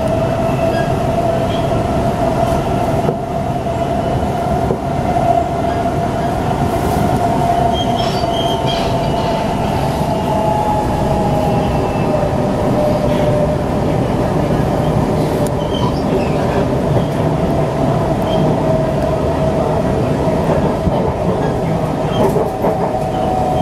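Cabin sound of a Siemens C651 metro train running at speed on elevated track: a steady rumble of wheels on rail with a continuous whine, and a fainter second whine that glides slowly down in pitch.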